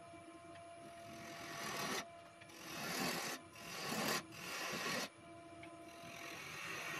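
Turning gouge cutting into a stone pine blank spinning on a wood lathe: three cuts about two seconds in, each swelling louder and then breaking off sharply, with the lathe running quietly between them.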